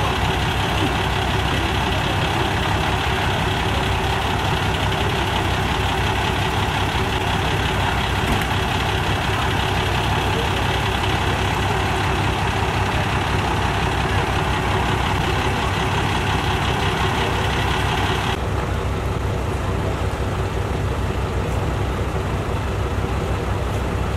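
Fire truck engine idling steadily with a low, even rumble. About 18 seconds in, the higher hissing part of the sound cuts off suddenly, leaving the lower engine rumble.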